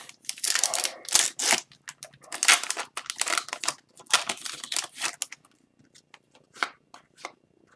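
Foil trading card pack wrapper being torn open and crinkled for about five seconds, then a few short light ticks as the cards are slid apart one by one.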